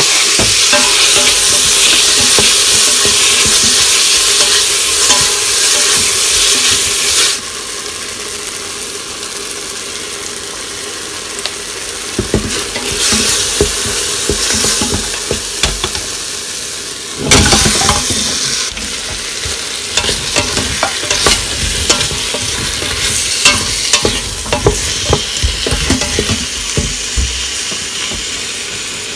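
Chopped tomatoes sizzling in hot oil in an Instant Pot's stainless steel inner pot, with a loud hiss for about the first seven seconds, then quieter. A wooden spatula scrapes and knocks against the pot as it stirs, and there is a louder thump about seventeen seconds in.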